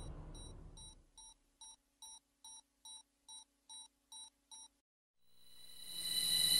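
A quick, even series of short electronic beeps, about two and a half a second, over a faint low hum. About five seconds in, a steady high-pitched drone swells up.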